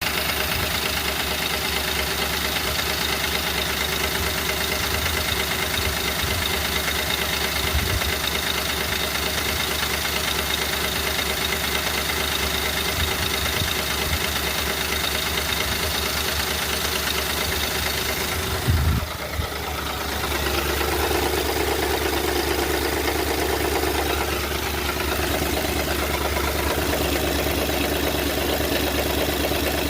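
Ford 4.6-litre V8 in a 2010 Crown Victoria idling with a knock/tap from a loose timing chain, the kind of fault that comes from its plastic chain tensioners breaking. About two-thirds of the way through there is a brief bump, after which the running sound shifts in tone.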